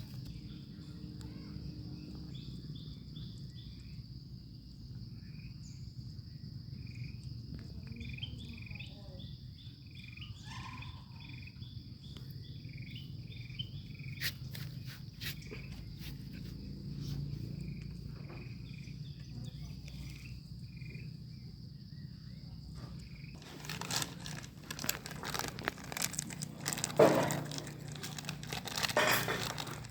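A steady high insect drone with repeated short chirps over a low hum. About three-quarters of the way through it gives way to loud, irregular rustling and crinkling.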